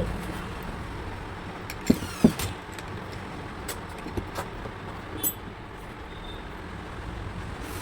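Steady low background rumble, like road traffic, with a few short sharp knocks; the two loudest come close together about two seconds in.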